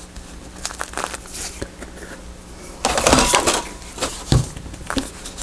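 Paper rustling and crinkling as journal pages and tape are handled and pressed down, with light taps, a louder burst of crinkling about three seconds in, and a dull thump a second later.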